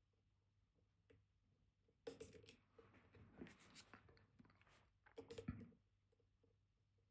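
Dimple lock pick and tensioner working in a high-security dimple lock (Kaba Titan Combi). Faint small pin clicks come first. About two seconds in, roughly three seconds of metal scraping and clicking follow. A second short burst ends in a thump about five and a half seconds in.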